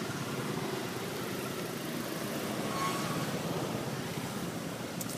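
A steady low engine rumble, like a motor vehicle idling, with a brief faint high squeak about three seconds in.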